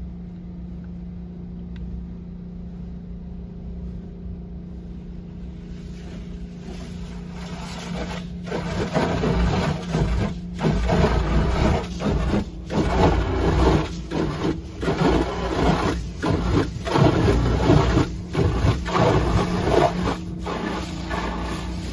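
Heard from inside a car in a Tandem ProTouch touchless car wash: a steady low hum, then from about eight seconds in the high-pressure water spray drums loudly on the windshield and roof in pulsing surges with brief gaps.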